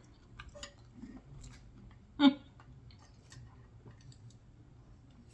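Close-up eating sounds: soft scattered clicks and crunches of chewing a burnt egg roll, with one short, louder sound a little over two seconds in.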